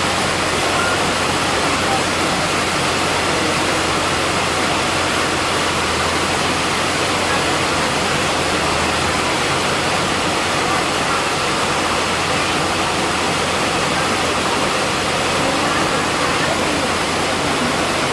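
Heavy rain pouring down steadily in a storm, a dense, even downpour.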